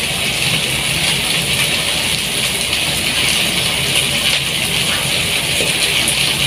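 Steady sizzling from a pot of kangkong adobo with fish cooking on a stove burner, with a couple of faint clinks about four and five seconds in.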